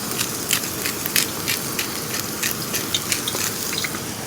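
Pork belly and onion sizzling on a hot grill, fat spitting in frequent sharp pops over a steady rush of falling water.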